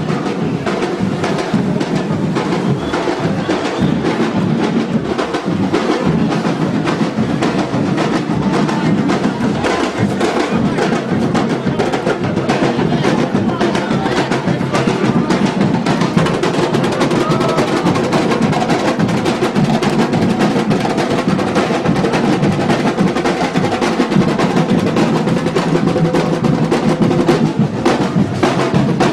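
Afro-Brazilian percussion ensemble playing drums in a steady, dense rhythm of many sharp strokes.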